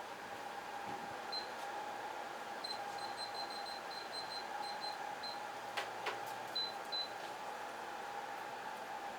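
A run of short, high electronic beeps, about three a second, then two slightly longer beeps, over a steady hum, with two sharp clicks between them.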